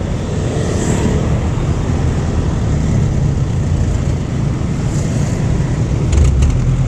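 Road traffic and wind rushing over the microphone of a moving bicycle, with a jeepney running close alongside; the low engine and road rumble grows heavier near the end.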